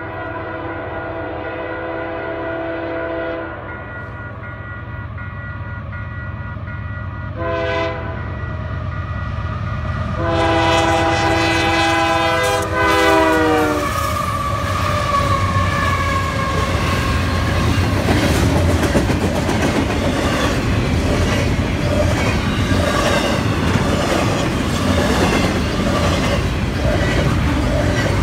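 Three Canadian Pacific GE AC4400CW diesel locomotives approach a level crossing and sound the horn: a long blast, a short one about halfway through, and a long one whose pitch drops as the locomotives pass. After that, the engines and a long train of container cars pass close by, a loud rumble with the wheels clicking over the rail joints.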